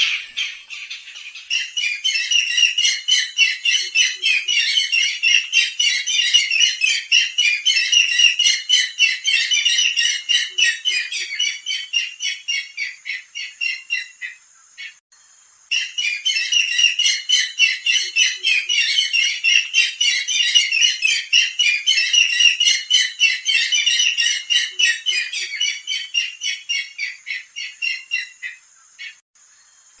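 Barred rail giving a long, fast series of harsh squawking calls, several a second, that breaks off for about a second halfway through before a second run starts.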